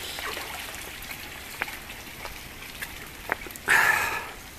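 Steady hiss of rain falling on a garden and pond, with a few light ticks and a brief louder rustle near the end.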